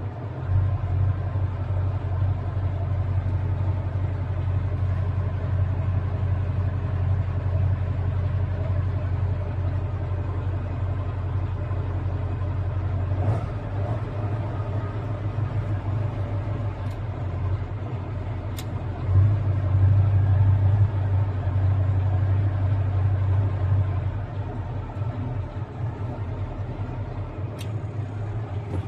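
KamAZ truck's diesel engine running steadily under load, driving the hydraulic pump that lifts the tipper body of another KamAZ. The engine note gets louder for a couple of seconds about two-thirds of the way through, then eases off near the end.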